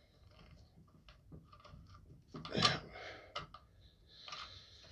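Faint clicks and scrapes of a hand working the cheek rest adjuster knob on an Umarex Gauntlet air rifle's buttstock, with a short louder scrape about two and a half seconds in.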